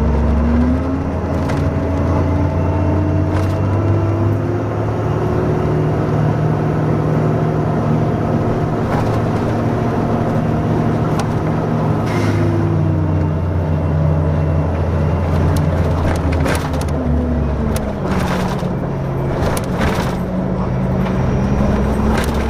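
Orion VII hybrid-electric city bus driving, a steady low engine hum under an electric drive whine that rises as it gathers speed, drops about halfway through as it slows, and rises again near the end. Short clicks and rattles run throughout, thickest in the last few seconds.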